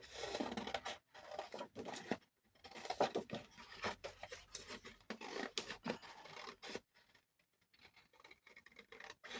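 Scissors cutting out a traced shape from cardstock: short, irregular snips and paper rustle, with a brief pause about three-quarters of the way through.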